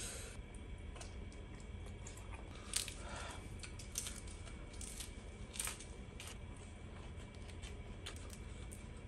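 Close-up eating: scattered sharp crunches and mouth clicks from biting and chewing a lettuce-wrapped mouthful of raw vegetables, over a steady low hum.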